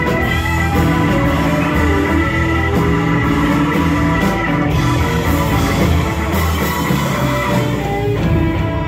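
Live blues-rock band playing: electric guitar over bass guitar and drum kit, loud and steady.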